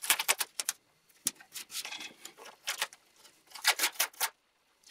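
Paper masking tape pulled off its roll in a series of short, crackling rips, with sharp clicks of scissors and of the tape being handled and pressed onto a wooden board.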